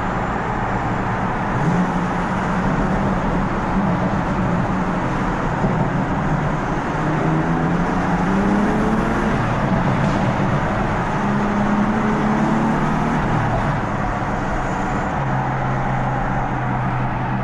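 Stage 1 tuned BMW M4's twin-turbo straight-six accelerating hard through the gears, its pitch climbing and then dropping back at each upshift. Near the end it settles to a steadier, lower drone.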